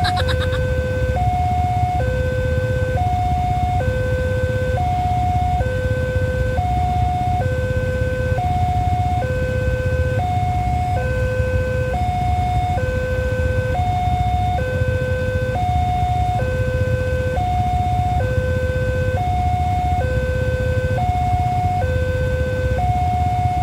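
Railway level-crossing warning alarm sounding its two-tone signal, a higher and a lower tone alternating about once a second without a break: the crossing is closed for an approaching train. A low steady rumble runs underneath.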